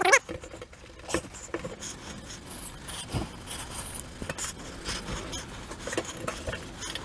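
Abrasive emery cloth rubbed over a copper gutter in short, irregular scratchy strokes, scouring the lap joint bright for soldering. A brief louder sound comes right at the start.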